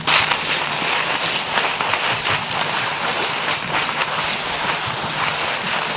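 Footsteps rustling and crunching through dry fallen leaves, a continuous dense rustle with many small crackles.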